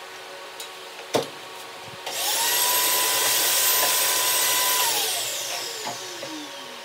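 Vacuum cleaner switched on about two seconds in, sucking up sawdust and chips from a freshly drilled guitar neck. It runs with a steady whine for under three seconds, then is switched off and winds down with falling pitch. A single sharp knock comes about a second in.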